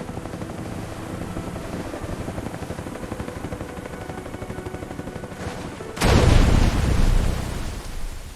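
Cartoon sound effect of a machine running fast: a rapid, even mechanical rattle, then a much louder rush of noise about six seconds in that fades away.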